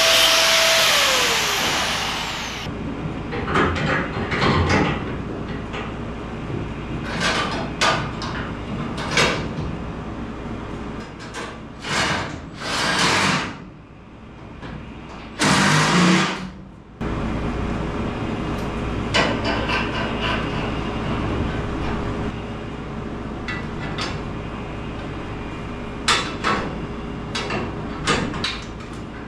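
Handheld angle grinder grinding steel, then switched off and winding down with a falling whine in the first couple of seconds. After that, scattered metal clanks and knocks as steel bumper brackets and tools are handled and fitted, with a few longer, noisier spells.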